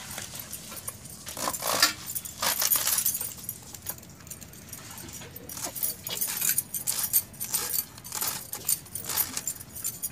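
Fresh cabbage being shredded against a boti, a fixed upright kitchen blade: bursts of quick, crisp crunching slices, several strokes at a time, with light jingling.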